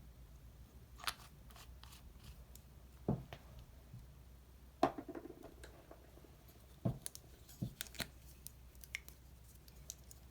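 Irregular sharp clicks and light taps of small objects being handled, about a dozen in all. The loudest comes a little under five seconds in, and a quicker cluster of small ticks follows later.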